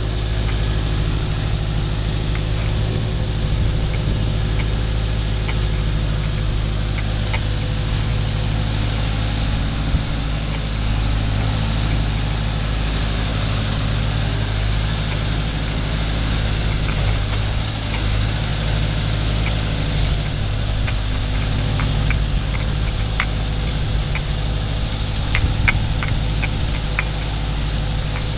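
Case 530 Construction King backhoe's engine running steadily, with a few light clicks or clanks scattered over it, mostly a few seconds in and again near the end.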